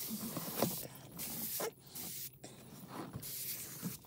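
Hand cleaning inside a car's back seat: a series of short hissing strokes, roughly one or two a second, with brief gaps between them.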